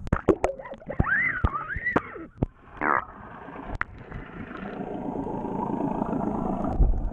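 Sound picked up underwater by a towed camera: sharp clicks and a few squeaky rising-and-falling whistles in the first three seconds, then a steady rushing that grows louder.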